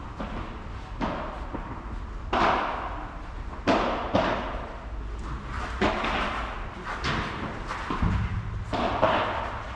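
Padel rally: a ball is struck back and forth by solid padel rackets and bounces on the court and off the walls. It makes sharp knocks at irregular intervals of about a second, each with an echo in the large hall.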